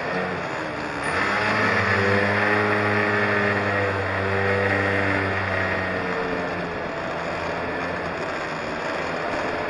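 Street go-kart's small engine running steadily under way, with wind and road noise. The engine note fades about six seconds in, leaving the rushing noise.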